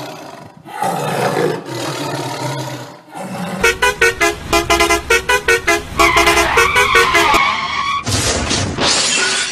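Animal roar sound effect for a toy tiger, then a vehicle horn honking rapidly, about four toots a second, followed by one longer horn blast and a short noisy burst near the end.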